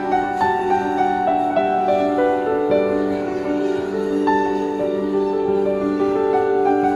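Slow instrumental background music with long held notes that change pitch step by step.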